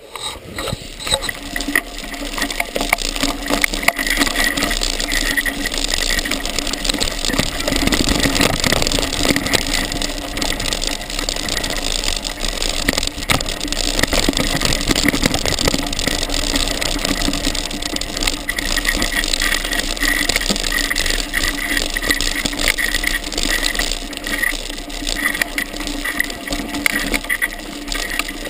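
Mountain bike riding over a rough trail strewn with branches: a continuous loud metallic rattle of chain and frame, with tyres crackling over twigs.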